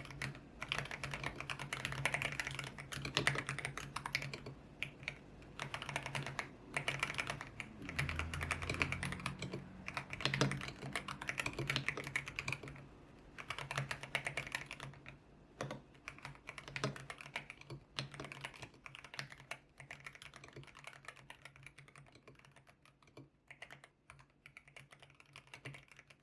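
Continuous typing on a YUNZII X75 Pro mechanical keyboard with Kaith Jellyfish switches and its original transparent keycaps: fast runs of keystrokes with brief pauses, growing softer near the end.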